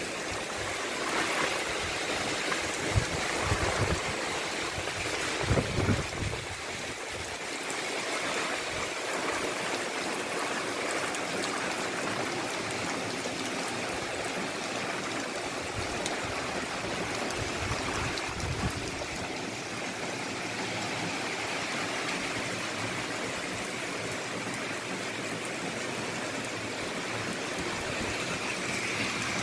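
Heavy rain falling steadily, a dense even hiss of downpour. A few low thumps are heard in the first several seconds.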